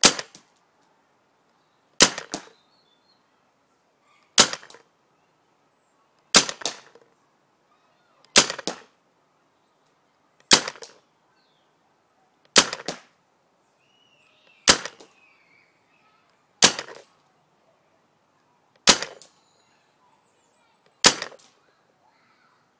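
RAP4 T68 paintball marker, converted to a rifle and fed from a bottle-line air adapter, firing single shots about every two seconds, eleven in all. Each sharp pop is followed a fraction of a second later by a second, quieter crack.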